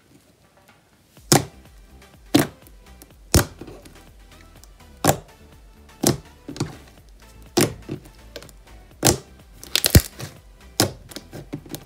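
Basic white-glue slime being pressed and squished by hand, giving sharp clicks and air-bubble pops about once a second, with a quick cluster of pops near the end.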